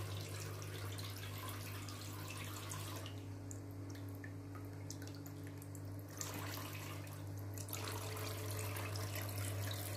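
Battery-powered toy sink's faucet trickling a thin stream of water into its plastic basin, with light splashing as a ball is rinsed under it, over a steady low hum. The flow is weak because the battery seems to be running low.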